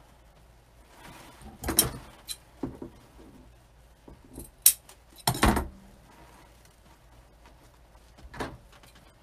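Craft supplies and tools handled on a worktable: about six short, irregularly spaced clicks and knocks, the loudest about five seconds in.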